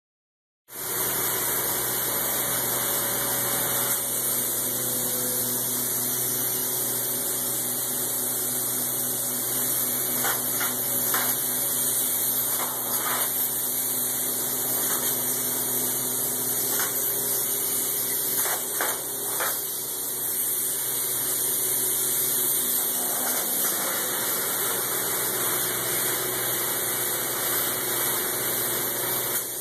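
Spray foam gun hissing steadily as insulating foam is sprayed onto a corrugated metal wall, over a steady machine hum, with a few short clicks along the way.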